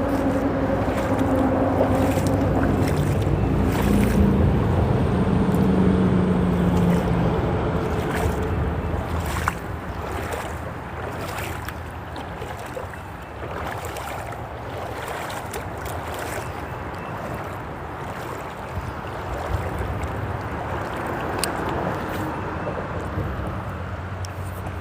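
Freeway traffic droning on the bridge overhead over a steady rush of stream water. The hum of a passing vehicle is loudest in the first eight seconds or so, then fades. A few faint clicks and knocks come through.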